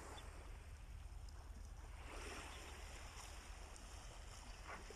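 Faint seaside ambience: wind rumbling on the microphone, with a soft wash of small waves on the shore swelling about two seconds in.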